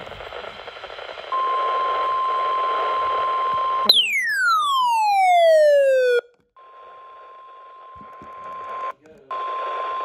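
NOAA Weather Radio's 1050 Hz warning alert tone, a steady high beep, playing through a Midland weather radio's speaker. About four seconds in, a falling whistle with overtones cuts across it for about two seconds and stops abruptly. The tone then resumes more quietly, drops out briefly near the end and comes back louder.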